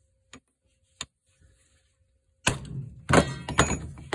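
Two light metallic clicks of a cold chisel against a steel bolt, then, from about halfway through, a loud clatter of steel tools knocking on a wooden board as the chisel is put down and the metal shears are handled.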